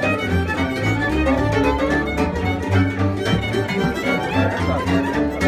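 Live violin playing the melody of a Romanian drinking song in an instrumental stretch between sung verses, over a pulsing low bass line.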